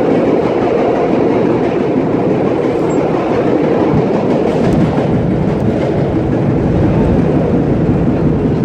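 Vintage R1-9 subway train running through a tunnel, heard from inside the front car: a steady rumble of wheels on rail.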